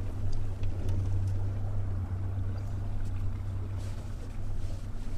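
Small boat's outboard motor running at a steady low hum as the boat moves along, with a rush of water and wind noise over it.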